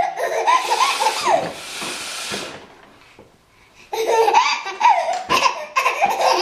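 A baby laughing in breathy bouts, breaking off about two and a half seconds in and starting again about four seconds in.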